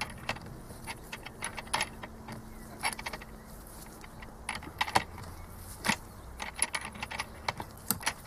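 Ratchet wrench clicking and metal tools clinking in irregular short bursts as the nozzle nut of a Delphi diesel injector is worked loose. The nut is stiff because its thread was sealed with adhesive.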